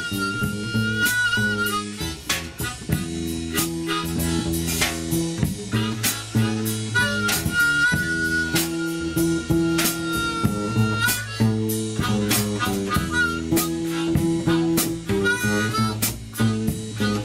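Blues-style acoustic jam: a harmonica plays long held notes, one at the start and a longer one about halfway, over a guitarrón's plucked bass line and a drum kit keeping time.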